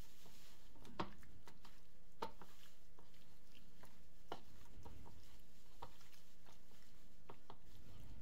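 A hand mixing oiled, spiced raw chicken slices in a ceramic bowl: soft wet squelches and irregular light clicks of meat and fingers against the bowl, the sharpest about a second in.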